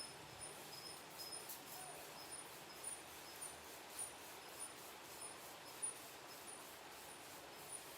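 Steady hiss of rain with an insect, a cricket, chirping in short high pulses about twice a second, and a few faint clicks.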